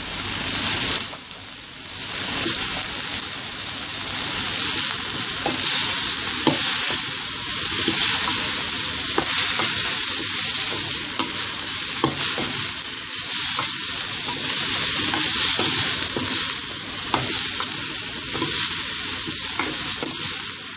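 Chicken and chunks of ash gourd and eggplant sizzling in a hot stainless steel wok while a metal spatula stirs them, scraping and clicking against the pan. The sizzle drops briefly about a second in, then carries on.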